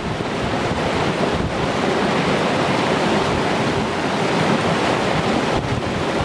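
Small waterfall on a mountain stream, water rushing and splashing steadily into a rock pool.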